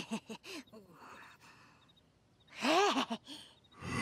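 Animated cartoon character's wordless vocal sounds: a few short murmurs at the start, then one louder vocal sound that rises and falls in pitch about two and a half seconds in.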